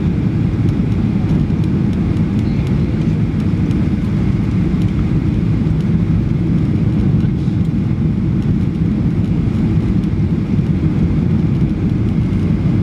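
Steady, low-pitched cabin noise of a Boeing 737-800 on approach to land, heard from a seat over the wing: its CFM56-7B turbofans and the airflow over the wing, flaps extended.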